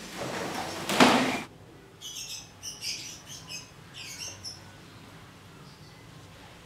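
A loud rustling flap in the first second and a half, peaking about a second in, as a large sheet of leather hide is laid down onto a tiled floor. It is followed by a run of short, high bird chirps.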